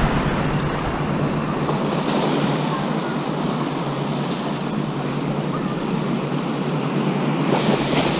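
Small ocean waves breaking and washing up a sandy beach at the water's edge: a steady rushing surf noise.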